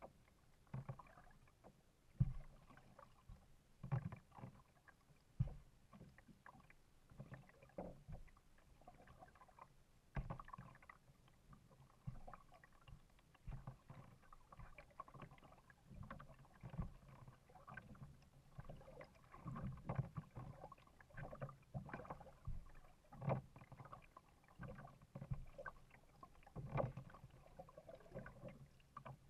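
Kayak being paddled: irregular splashes and drips as the paddle blades dip into the water, with dull low thumps every second or two.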